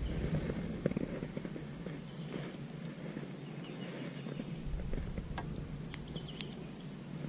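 Small clicks and rustles of hands handling a freshly caught bluegill and a spinning reel, as the fish is landed and gripped for unhooking. A steady high insect trill runs behind it.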